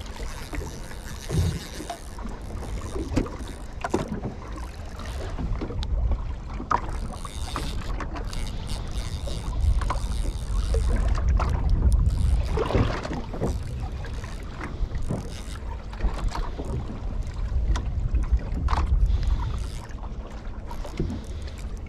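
Wind buffeting the microphone and water slapping against a small boat's hull, with occasional light knocks and clicks scattered through.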